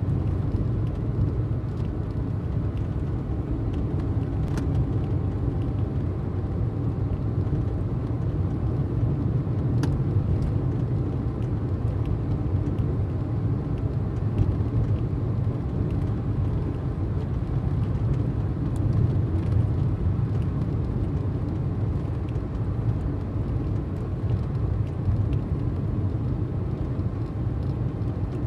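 Steady road noise heard from inside a moving car's cabin: a low rumble of tyres and engine at motorway speed, with a few faint clicks.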